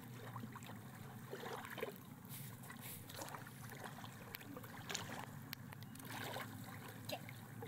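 Faint water sounds over a low steady hum, with scattered small clicks and knocks.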